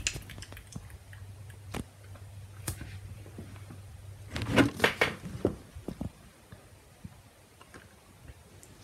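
Handling noise from a VHS tape in a clear plastic case: fingers gripping and shifting the case, with a few separate clicks and a brief cluster of rubbing and clicking about halfway through.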